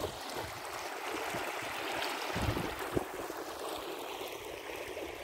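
Steady rush of floodwater running across waterlogged paddy fields, with a couple of low bumps of wind on the microphone about two and a half and three seconds in.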